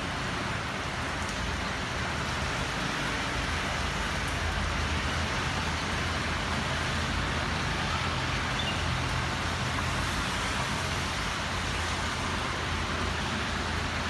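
Traffic on a rain-soaked street in steady rain: cars, a van and a motorbike passing on the wet road over a low, steady rumble of engines.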